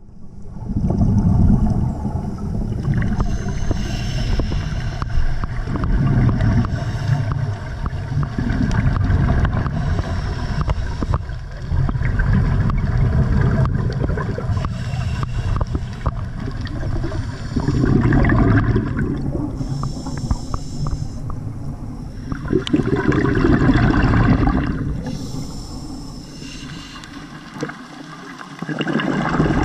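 Underwater sound of scuba breathing through a regulator: gurgling bursts of exhaled bubbles alternating with hissing breaths, repeating every few seconds.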